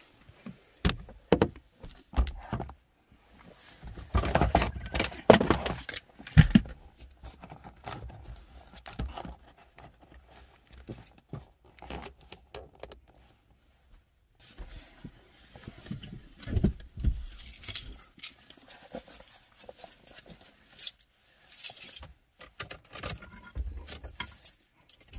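Handling noise from a camera being moved about and set in place on a truck's dashboard: irregular knocks, clicks and rattles, loudest about four to six seconds in and again around seventeen seconds in.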